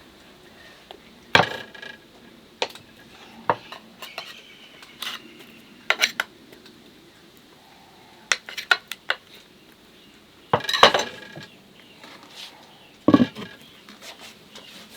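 Kitchen utensils and dishes clinking and knocking against each other in irregular sharp clinks with brief ringing, the loudest a cluster about eleven seconds in and a knock about two seconds later.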